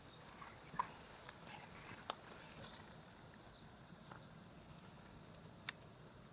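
A quiet background with scattered small crackles and ticks. Three sharp clicks stand out, at about one second, two seconds and near the end.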